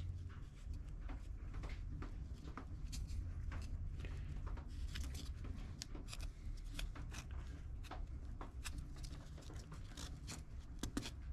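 Faint, scattered small ticks and light rubbing from fingers pressing and smoothing air-dry clay around a glass eye set in a foam head form, over a low steady hum.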